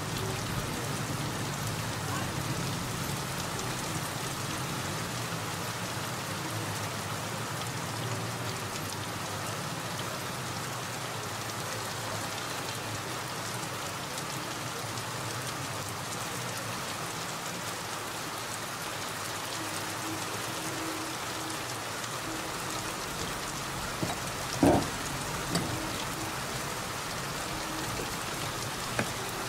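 Steady rain falling on a city street, an even hiss with a faint low hum under it. A single short knock stands out about three-quarters of the way in.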